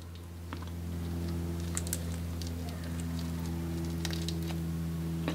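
Fingers peeling the shell off a boiled shrimp: a scatter of faint crackles and small clicks, over a steady low hum.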